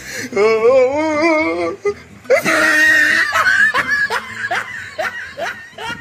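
A man laughing loudly: a wavering run of laughter, a brief shrill burst, then a string of short rising laughs that fade out near the end.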